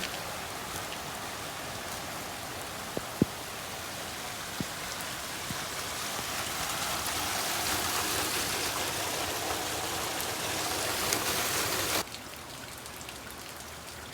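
Heavy rain falling steadily, with a few sharp drop taps in the first few seconds. It grows a little heavier, then drops off abruptly to a quieter patter near the end.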